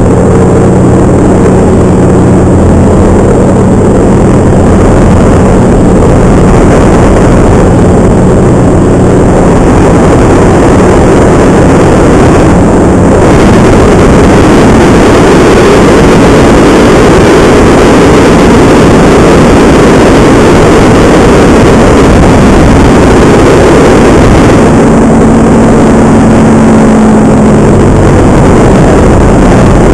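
Paramotor engine and propeller running under a dense rush of wind noise, loud and steady throughout; the engine note sits higher for a few seconds near the end.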